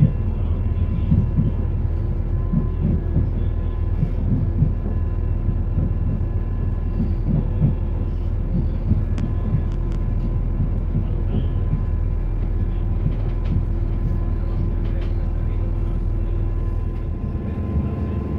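Interior of a FEVE series 2900 electric multiple unit running on narrow-gauge track: steady rumble and clatter of wheels on rails with a faint steady whine. The low rumble changes near the end as the train slows into a station.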